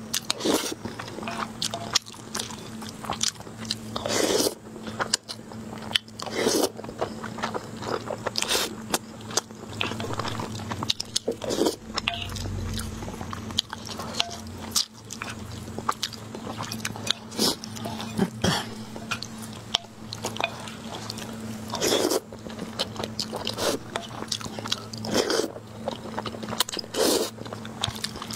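Close-miked eating sounds of braised pork belly, rice and noodles: wet chewing and mouth clicks, with louder slurps of noodles and sauce off a wooden spoon every few seconds.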